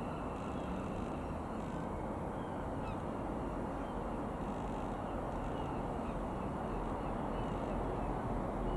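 Birds calling in short chirps and caws over a steady low rumble.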